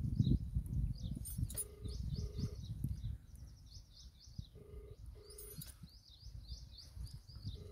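Small birds chirping in quick runs of short notes throughout. Over them, a telephone ringback tone sounds as a low double beep every three seconds or so: twice, then starting again at the very end. There is a low rumble, heavier in the first three seconds.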